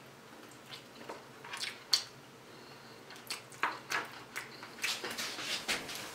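Close-miked mouth sounds of a person chewing saucy baked chicken wings: scattered short wet clicks and smacks, the sharpest about two seconds in, coming more often in the second half.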